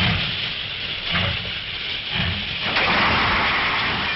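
Steam locomotive hissing steadily, with slow, uneven low chuffs.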